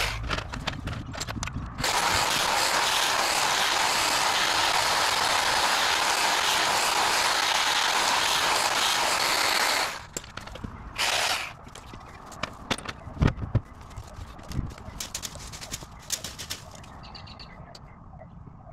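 Battery-powered pole hedge trimmer running steadily. It cuts out briefly just after the start, then stops about ten seconds in and gives one short burst about a second later. Scattered knocks and rustles follow.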